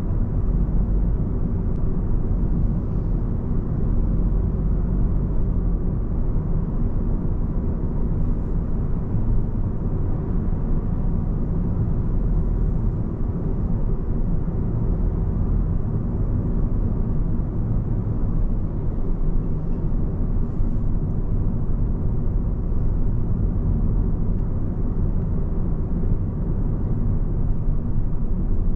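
Steady low rumble of a car being driven: road and engine noise, with no sudden events.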